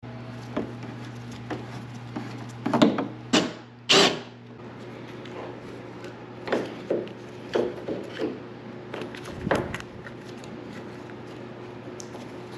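Irregular knocks and clicks of hand tools and parts being handled while working on a car's tailgate, over a steady low hum; the loudest knocks come in a cluster about three to four seconds in.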